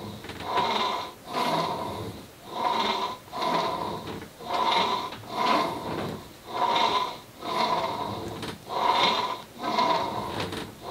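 A longbow being pulled down and let back up again and again on a tillering rig: the rig's line squeaks in pairs, one on the draw and one on the return, about every two seconds. The bow is being exercised to check the shape of its bend.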